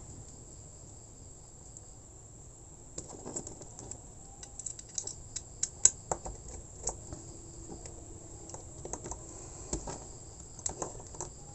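Small clicks and taps of hands and a small screwdriver working wire ends into the screw terminals of a plastic two-way light switch. They start about three seconds in and come irregularly, one sharper click near the middle.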